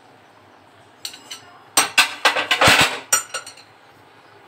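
Metal spoon clinking and scraping against a ceramic bowl and a metal cooking pot as raw mango slices are pushed into the lentils. A few sharp clinks come about a second in, then a busier cluster of clinks and scraping, ending in a few more clinks.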